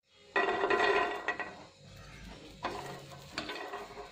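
Wooden spatula scraping and stirring garlic cloves around a dry, flat nonstick pan in several rough strokes, with the cloves rattling on the pan.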